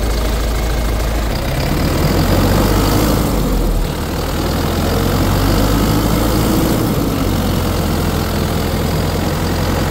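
BharatBenz 1117 truck's diesel engine idling steadily, heard close to the open engine bay.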